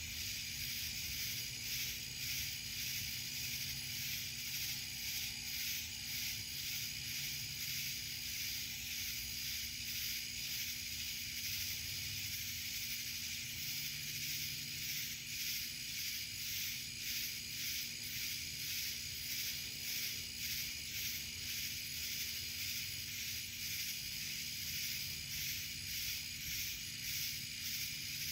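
Chorus of night insects, cicadas among them, calling in a high, continuous drone that pulses in rhythm about once a second, over a faint low rumble.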